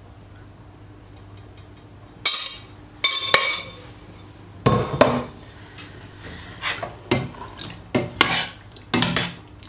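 A metal ladle stirs chunky curry in a stainless steel pot. Two sharp metal clanks with a short ring come about two and three seconds in, then the ladle knocks and scrapes against the pot about once or twice a second.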